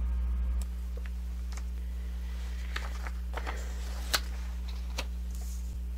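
Faint paper handling, a pen working on a planner page and the pages of a sticker book being handled, heard as a few soft clicks and rustles over a steady hum; the sharpest click comes about four seconds in.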